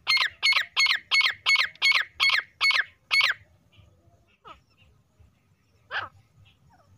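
Female grey francolin calling: a rapid run of about nine sharp notes, each falling in pitch, about three a second, then two more single notes after a pause.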